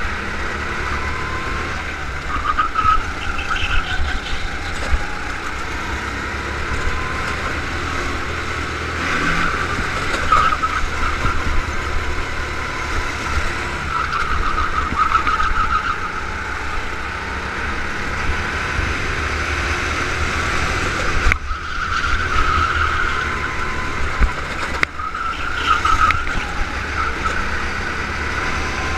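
Go-kart engine running through a full lap, its note rising on the straights and dropping back into the corners, heard from on board with wind rumble on the microphone.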